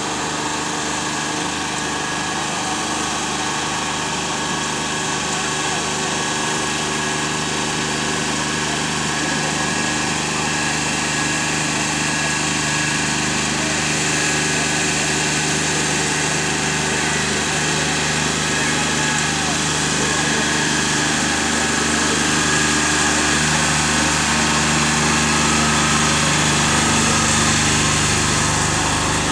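Tractor engine running steadily as it drives through a flooded rice paddy on steel paddy wheels, a dense hum over a hiss that grows a little louder near the end.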